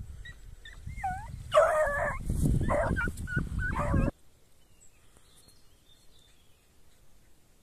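Young hound yipping and whining in short pitch-bending calls, then a quick run of loud, high-pitched yelping barks that cuts off suddenly about four seconds in, with a low rumble underneath.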